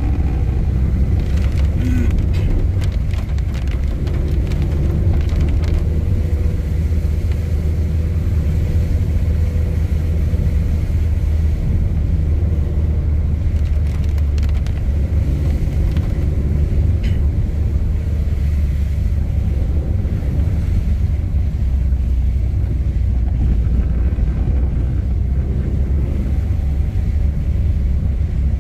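Steady low rumble of a car driving, engine and road noise heard from inside the cabin, with a few faint ticks early on and again about halfway through.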